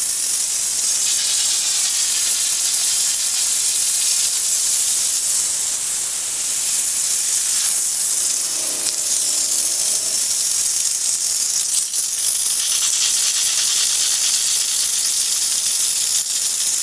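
Steam guns of an LPG-heated steam car washer jetting steam in a steady, loud, high hiss.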